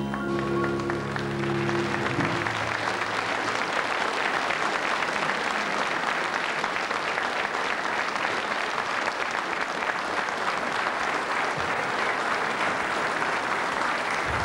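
The band's closing chord rings on for about two seconds and dies away, and a studio audience applauds steadily through the rest.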